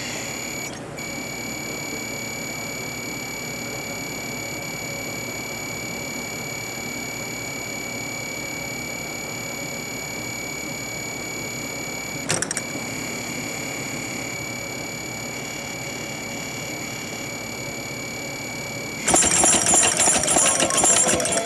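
Automated orchestrion between tunes: a steady mechanical hum with faint high whines and a single click about 12 seconds in. About two seconds before the end, the machine starts its next tune with a sudden loud clatter of its mechanical strikers and pluckers.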